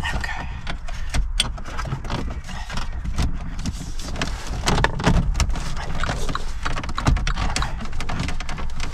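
Irregular plastic clicks and knocks as the dashboard trim around a Mini Clubman's round centre display is pressed and tapped back into place.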